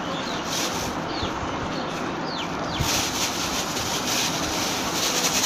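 Hands scooping chopped ginger and garlic off a steel tray into a plastic bag, the bag crinkling more in the second half, over a steady hiss of background noise.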